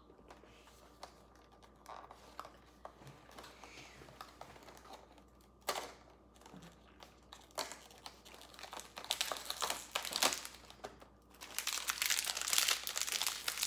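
Toy packaging crinkling as it is handled and opened, with scattered light clicks at first and dense crinkling in the last few seconds.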